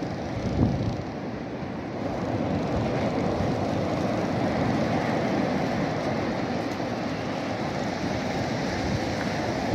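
Steady roar of wind and breaking surf, with a brief thump about half a second in.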